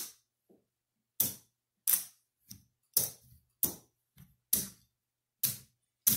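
Casino chips clicking as they are picked up, stacked and set down on a craps table layout: about ten sharp clicks at uneven intervals of half a second to a second.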